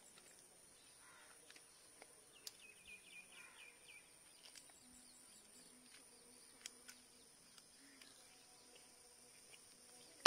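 Faint, scattered snips of kitchen scissors cutting through the fins and tail of a karimeen (pearl spot) fish, over a steady high drone of insects. About two and a half seconds in, a bird gives a quick run of about eight chirps, and a louder sharp click comes at the very end.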